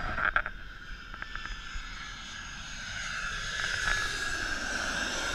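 Twin-engine jet airliner on final approach to land, passing low overhead: the engine noise grows louder over the first few seconds, peaks around four seconds in and holds.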